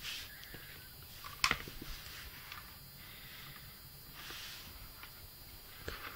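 Handling noise from a plastic lithium battery charger and its cord being moved about by hand: soft rustles, a sharp click about one and a half seconds in followed by a few lighter ticks, and more faint ticks near the end.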